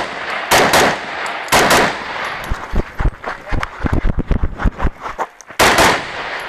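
Semi-automatic rifle fired in quick pairs of shots, about a quarter second apart: two pairs in the first two seconds and another pair near the end. Quieter knocks and clicks fall between the second and third pairs.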